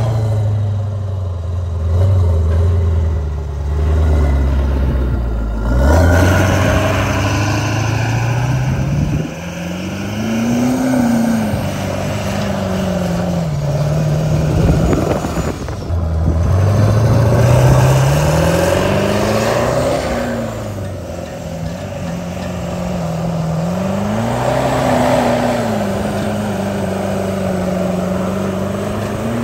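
Lifted Ford Super Duty pickup on oversized tires doing donuts on grass. The engine runs low and steady for the first few seconds, then revs up and down in long swells as the rear tires spin and throw dirt.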